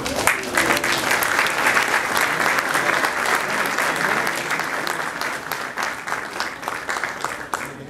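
An audience applauding: a dense patter of many hand claps that slowly dies down toward the end.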